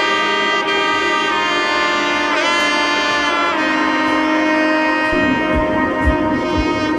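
Background music: a melody of long held notes with a brief bend in pitch, joined about five seconds in by a steady low drum beat.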